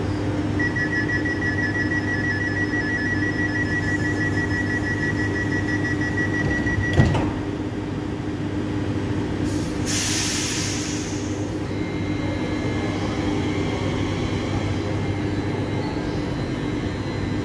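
Z 50000 electric train at an underground platform: a high two-tone door-closing warning beeps for about six seconds, then the doors shut with a knock. A short burst of air hiss follows about three seconds later, and a faint high whine of the traction motors sets in as the train starts to pull away, over a steady low hum.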